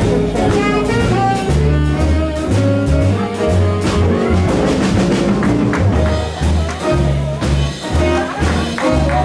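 Jazz band playing: drums and a bass line moving note by note under a horn melody.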